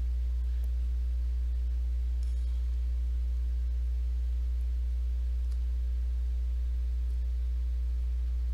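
Steady low electrical hum, with fainter, higher steady tones above it, typical of mains hum picked up by the recording setup; a few faint ticks come through.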